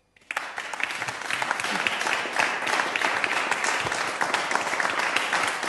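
Audience applause breaking out suddenly just after the start: many hands clapping in a dense, steady patter.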